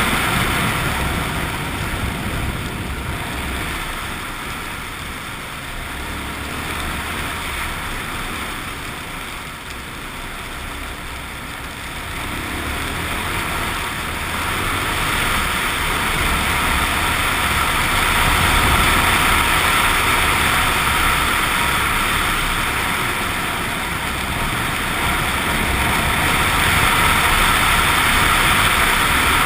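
Suzuki XF650 Freewind's single-cylinder engine running on the move, mixed with rushing wind noise. It grows quieter over the first ten seconds or so, then louder again from about fourteen seconds in.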